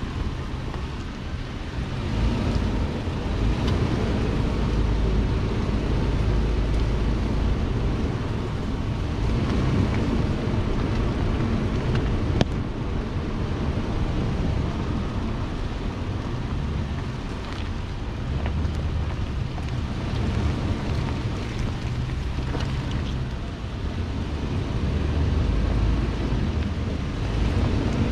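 Off-road vehicle driving along a rutted dirt trail: a steady low engine and drivetrain rumble with wind buffeting the microphone. A single sharp knock sounds about twelve seconds in.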